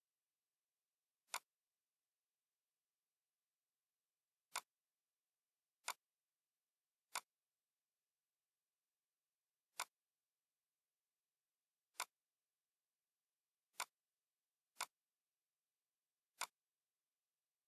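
Computer mouse button clicking: nine single sharp clicks at uneven intervals, one for each knife-cut point placed on screen, with silence between them.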